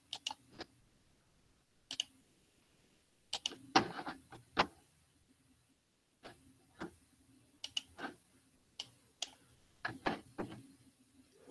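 Scattered, irregular clicks and taps of a computer mouse and keyboard, a few coming in quick clusters, over a faint steady hum, as screen sharing and video playback are set up.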